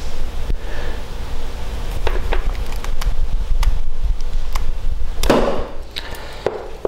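Modular-plug crimp tool clicking as its stripping blade cuts and strips the jacket off a flat six-wire LocoNet cable, with scattered sharp clicks and handling noise and a louder rasp about five seconds in.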